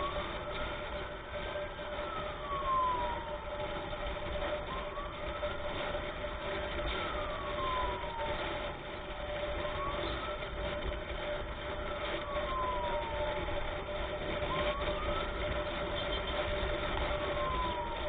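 Emergency vehicle siren in a slow wail, rising and falling in pitch about every four and a half seconds, over steady road and wind noise from travelling at speed.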